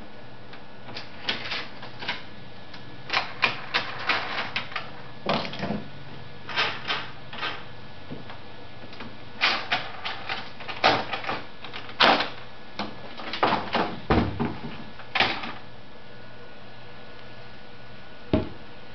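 Hold-down clamps on a CNC router table being loosened and lifted out of their T-tracks: irregular clusters of clicks and knocks, with one last knock near the end, over a steady hum.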